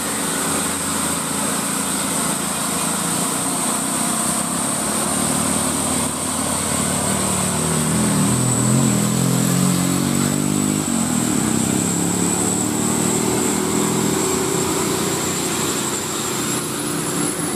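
Diesel engines of heavily loaded light dump trucks (Mitsubishi Canter, Isuzu Elf) labouring up a hill. The engine note rises and shifts in pitch between about seven and eleven seconds in.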